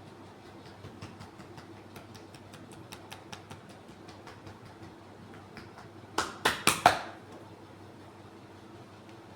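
Massage sounds: soft scattered clicks of hands working on skin, then, about two-thirds of the way in, four loud sharp cracks in quick succession.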